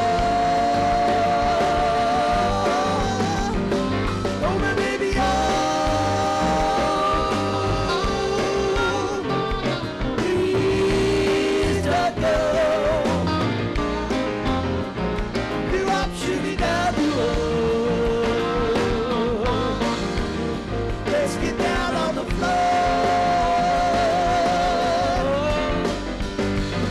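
Live rock band playing: keyboards, electric guitar and drums, with long held lead notes that waver over a steady beat.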